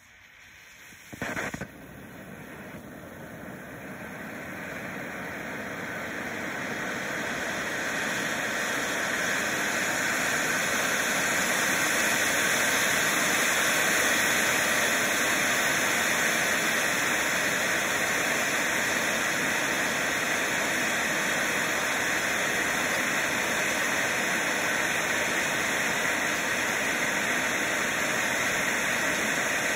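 Black Cat Titanium Fountain firework jetting sparks with a steady rushing hiss. A short flare of hiss comes about a second and a half in, then the hiss builds over the first ten seconds or so and holds steady.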